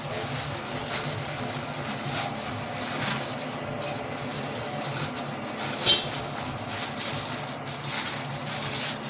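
Steady car noise heard from inside the cabin: a low engine hum under a wash of road and air hiss.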